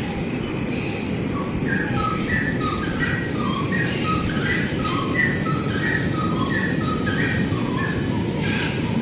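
Sound-art soundtrack: a steady low rumbling noise overlaid with short squeaky chirps, about three a second, hopping between a few pitches.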